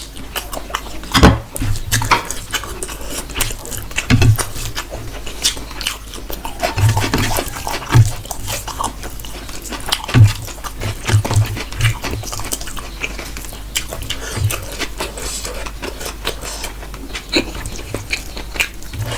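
A person chewing and lip-smacking loudly while eating chicken and rice, close to the microphone: irregular wet clicks and smacks with occasional low thuds.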